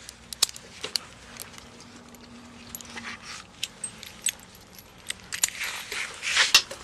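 Metal chain dog collar clinking and jangling as a police dog's collar is handled and fastened, in a run of irregular sharp clicks. A louder scuffing noise comes near the end.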